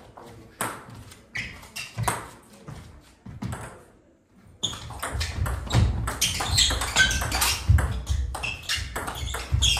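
Table tennis ball being played: a few scattered ball taps, a brief hush about four seconds in, then a rally of rapid sharp clicks of the ball off bats and table with low thumps of the players' footwork.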